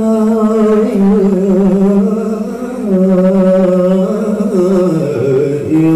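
A male qari's voice in melodic Quran recitation (tilawah), sung into a handheld microphone. He holds long ornamented notes that waver up and down, and the pitch steps down about five seconds in.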